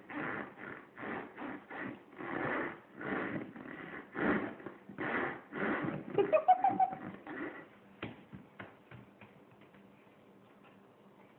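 Little girl's breathy, wheezy laughing in short quick gasps, with a rising squeak about six seconds in, then a few faint clicks.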